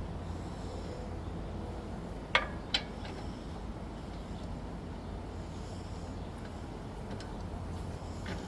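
Two sharp knocks about a half second apart, two or three seconds in, over a steady low rumble of outdoor background noise.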